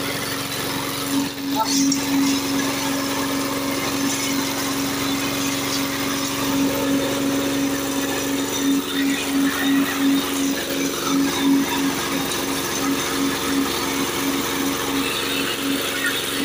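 Small single-cylinder diesel engine driving a grass chopper, running steadily with a constant hum that begins to pulse about three times a second roughly halfway through. Voices in the background.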